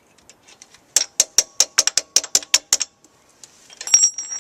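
Metal hand tools working a cotter pin out of a motorcycle's axle nut: a quick run of about ten sharp metallic clicks, about five a second, then a single metal clink that rings on with a high tone near the end.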